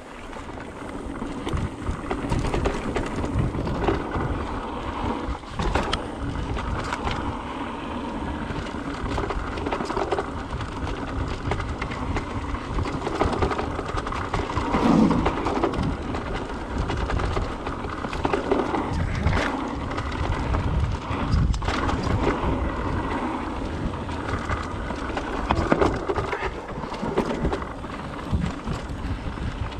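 Mountain bike riding down a dirt flow trail: tyres rolling over the ground and the bike rattling and knocking over bumps, with wind rumbling on the microphone. It gets louder over the first couple of seconds as the ride picks up.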